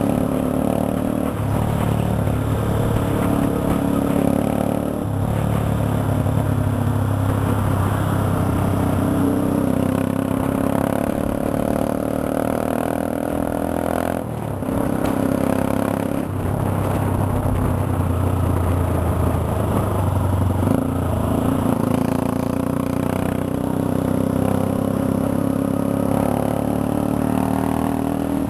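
Motorcycle engine running steadily under way, heard from the bike itself. The engine note dips and picks up again a few times, about halfway through and again a little later.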